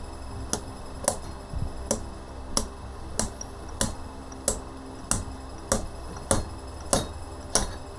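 Fork seal driver being slid down a Honda Africa Twin CRF1000 fork tube and knocked against the new oil seal, driving it into the fork leg. About a dozen sharp knocks come steadily, roughly one every 0.6 seconds.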